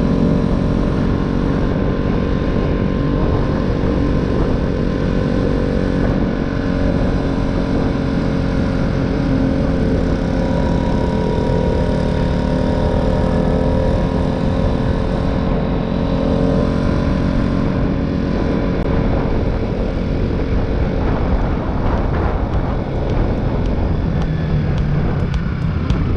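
Motorcycle engine running at a steady cruise, its pitch drifting a little up and down, with heavy wind rumble on a helmet-mounted microphone.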